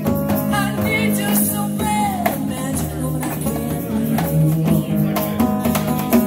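Live band playing a blues-rock song: acoustic and electric guitars over a hand-played cajon beat.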